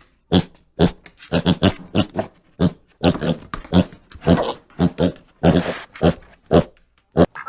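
A dog barking over and over in short, quick barks, about two a second.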